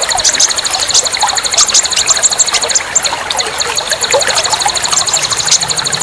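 Dense chorus of small songbirds chirping and trilling rapidly at a high pitch, with scattered lower chirps, played as a bird-therapy recording meant to spur caged birds that have gone quiet into singing.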